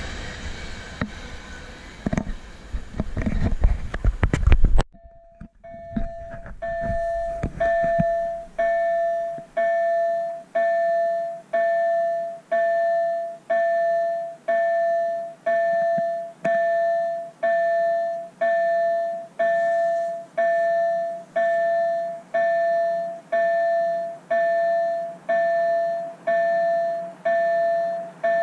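A freight train of tank wagons rolling past with wheel clatter, cut off suddenly about five seconds in. Then a level-crossing warning bell dings steadily, a little faster than once a second, each ding fading quickly: the crossing warning that a train is approaching.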